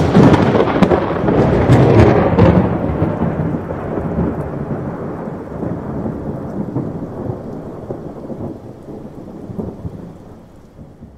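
A peal of thunder: a sudden crackling crack at the start rolls into a long low rumble that fades away over about ten seconds.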